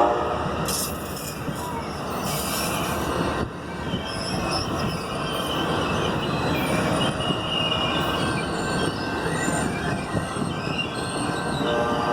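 Amtrak Sunset Limited passenger train rolling into the station: a steady rumble of wheels on the rails, with high-pitched wheel squeal coming and going as it slows.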